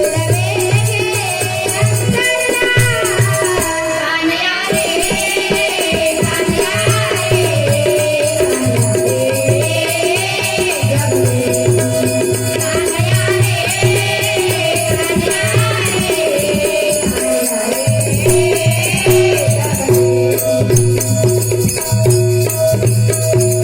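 Marathi devotional bhajan: a high voice singing over held harmonium notes, with a constant jingling of rhythmic hand percussion.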